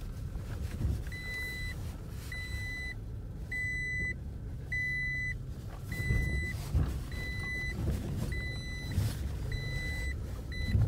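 Pickup truck crawling slowly over a rough dirt trail, heard from inside the cab: a steady low engine and tyre rumble with occasional bumps. Over it an in-cab warning chime beeps, a high tone about once a second.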